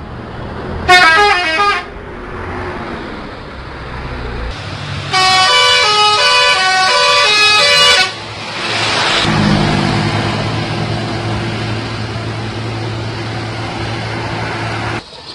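Bus "telolet" multi-tone musical horn playing its tune: a short burst about a second in, then a longer run of stepping notes from about five to eight seconds. After it comes a burst of hiss, then an engine running steadily.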